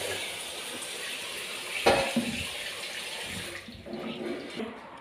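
Running water, a steady hiss that stops about three and a half seconds in, with a sharp knock about two seconds in.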